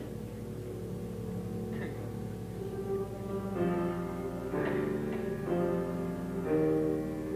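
Silent-film style musical accompaniment: held chords that change about once a second in the second half.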